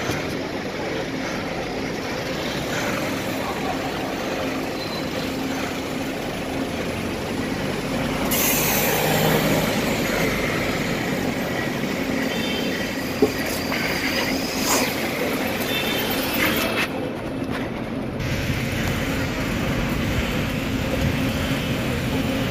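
Steady street traffic noise with engines running. A loud hiss comes about eight seconds in, and a single sharp knock about thirteen seconds in.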